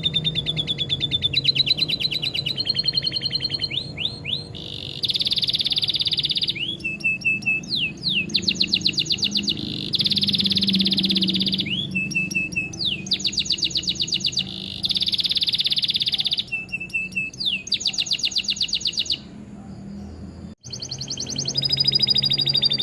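Domestic canary singing long runs of rapid trills and quick up-sweeping notes, repeated phrase after phrase, its song filled in with lovebird-style phrases. A low hum sits under it, and the song breaks off briefly with a click about two-thirds of the way through.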